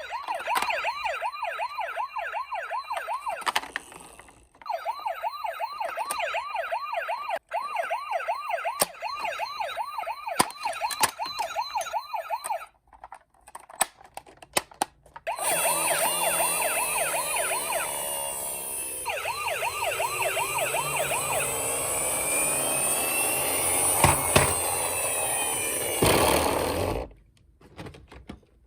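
Electronic sirens of toy emergency-vehicle minicars, with clicks from handling the toys. First a single fast warbling siren sounds in several runs. From about halfway, several sirens sound at once, a fast warble layered with slower rising and falling wails, until they cut off shortly before the end.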